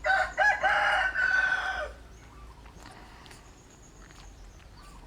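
A rooster crowing once: a call of about two seconds, a few short broken notes and then a long held note that drops away at the end.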